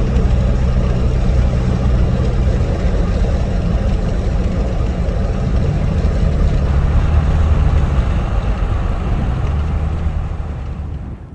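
Steady road and engine noise of a car being driven, heard from inside the cabin: a low rumble with tyre hiss over it, dying down near the end.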